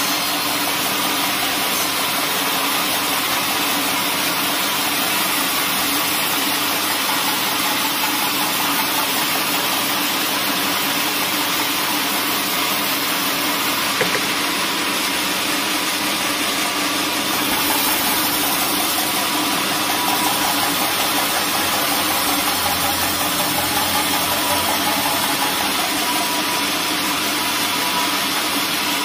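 A large band sawmill running steadily as its band blade rips a squared log lengthwise into boards, an even mechanical drone. There is a single brief knock about halfway through.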